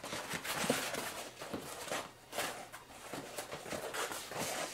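Rustling and crinkling of a foldable turkey decoy being unfolded by hand, in uneven bursts with short pauses.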